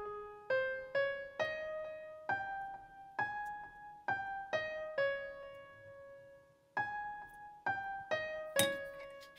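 Background music: a slow piano melody of single notes, each struck and left to fade, with a brief pause in the middle before the tune resumes. A short sharp knock sounds near the end.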